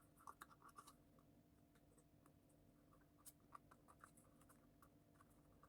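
Faint rustles, light clicks and scratches of thin card being handled, wrapped around a paper box and creased by hand.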